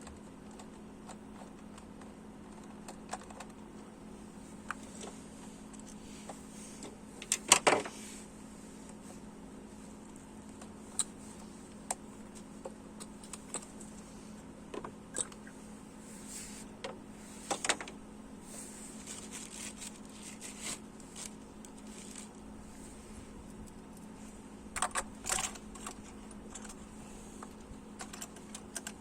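Light, irregular clicks and clatter of hand tools at work on an engine bay, with louder metallic clatters about seven seconds in, again near the middle, and near the end. A steady low hum runs underneath.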